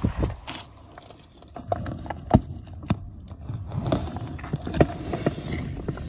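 Live swamp eels and fish squirming against one another in a perforated plastic basket: wet slithering with scattered clicks and knocks, the sharpest about two and a half seconds in.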